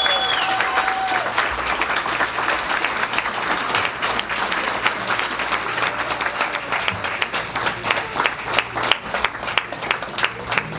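Audience applauding steadily, a dense patter of many hands clapping. The last held note of the song fades out about a second in.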